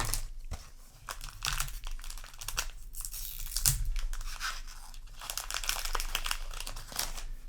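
A trading-card booster pack wrapper being torn open and crinkled by hand, a run of crackly rustles and small clicks.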